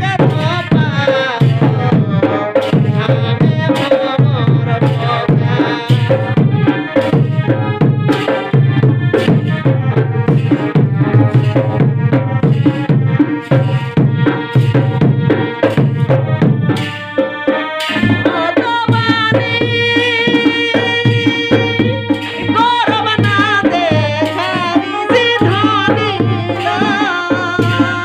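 Jhumur folk music: hand drums keep a steady rhythm under a sustained melody line. The melody changes and becomes more ornamented about two-thirds of the way through.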